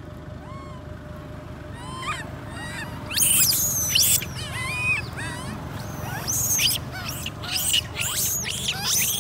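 Baby long-tailed macaque crying: a run of high, shrill squeals, each rising and falling in pitch. They are faint at first, then turn loud about three seconds in and keep repeating.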